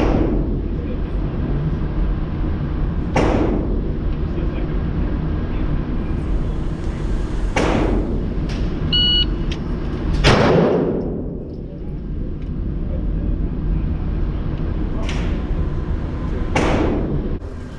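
A shot timer's short electronic beep a little before nine seconds in, followed about 1.3 seconds later by the loudest pistol shot, echoing in an indoor range. Other shots echo at intervals, over a steady low hum.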